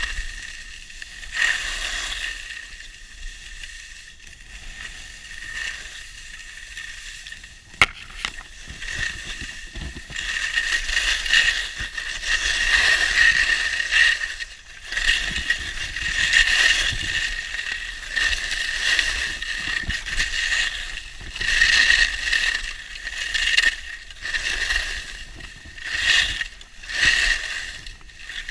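Skis scraping and hissing over packed, groomed snow through a run of turns, the rush swelling and fading with each turn at about one and a half second intervals in the second half. There is one sharp click about eight seconds in.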